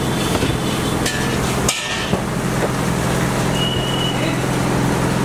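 A wooden rolling pin knocking and rolling on a floured steel counter as paratha dough is rolled out, with a couple of short knocks about one and two seconds in, over a steady low mechanical hum.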